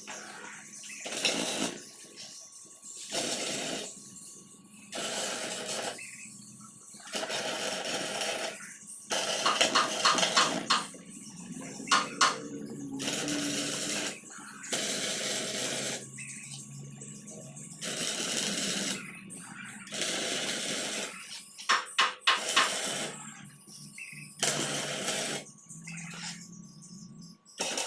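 MIG welder laying short welds, about a dozen bursts of one to two seconds each with brief pauses between them.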